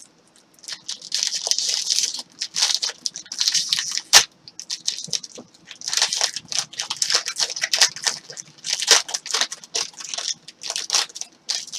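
Trading cards and their wrappers being handled: a run of short rustling, sliding scrapes, with one sharp click about four seconds in.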